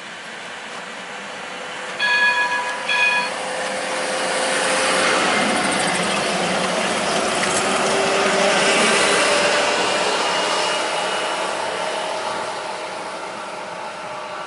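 A Translohr rubber-tyred tram approaching and passing, its running noise growing to a peak about eight or nine seconds in and then fading. About two seconds in it sounds two short horn blasts, the second shorter.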